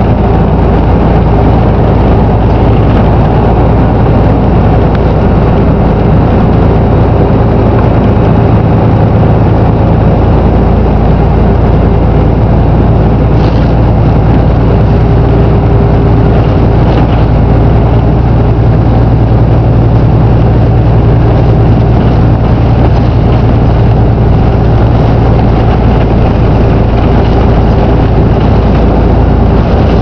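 Volvo B7RLE bus's six-cylinder diesel engine and drivetrain running as the bus drives along, heard from inside the passenger saloon: a loud, steady drone with a low hum, and a single brief click partway through.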